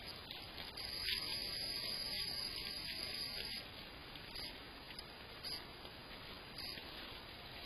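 Faint night-time outdoor ambience picked up by a security camera's microphone: a steady hiss, which grows a little louder and brighter with soft rustling noise from about one to three and a half seconds in.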